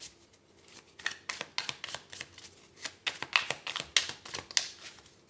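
A tarot deck being shuffled by hand: a rapid run of soft card flicks and taps, sparse at first and thickening from about a second in.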